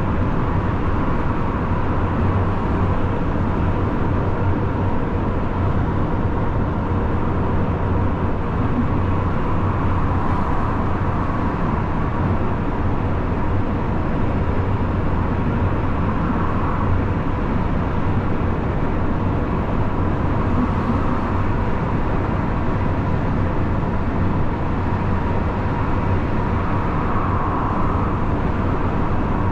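Steady driving noise of a lorry on the motorway: a constant low engine drone with tyre and road noise, unchanging throughout.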